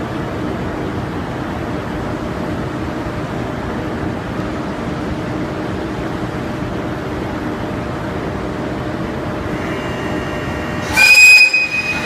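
EF81 electric locomotive standing with a steady hum from its running equipment, then about eleven seconds in its horn gives one loud, high-pitched blast of about a second: the departure signal.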